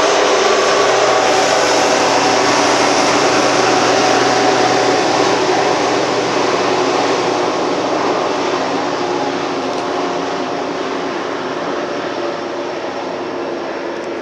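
Union Pacific autorack freight train rolling by: the steel wheels rumble steadily on the rail, and a rear-end diesel locomotive passes. The noise slowly fades over the second half as the train moves away.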